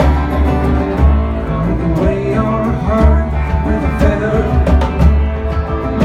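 Live acoustic folk string-band music: strummed guitar and a bowed string melody over a heavy, steady bass.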